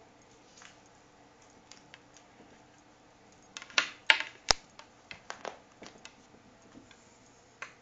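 Light clicks and knocks from a cat playing with a TV antenna cable: a quick run of sharper knocks a little past halfway, then scattered lighter ticks.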